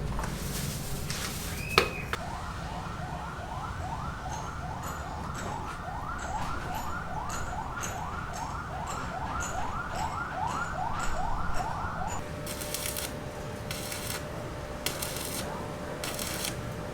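A siren sounding in rapid rising sweeps, about two to three a second, for roughly ten seconds, then changing to a steady tone near the end. A sharp click comes just before it starts, and a run of sharp knocks follows.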